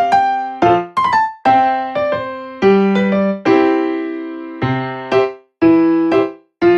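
Background music: a piano or electric-piano melody of struck notes and chords, each fading before the next, with a couple of short breaks near the end.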